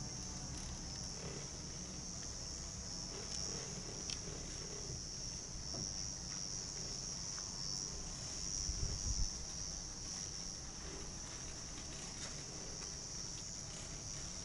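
Steady high-pitched chorus of insects, with a low rumble underneath and a brief louder low bump about nine seconds in.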